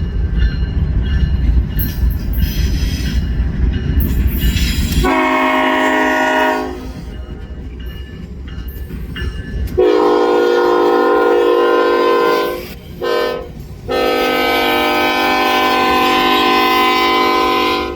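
Diesel freight locomotive's multi-chime air horn sounding the grade-crossing signal, long, long, short, long, after a loud low rumble from the train.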